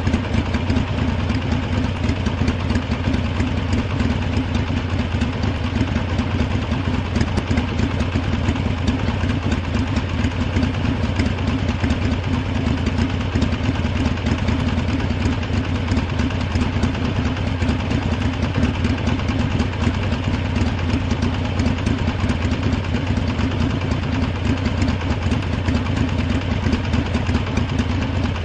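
Harley-Davidson V-twin motorcycle engine idling steadily, with no revving.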